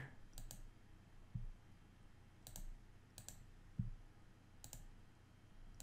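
A few sharp computer mouse clicks, about four, irregularly spaced, over faint room tone.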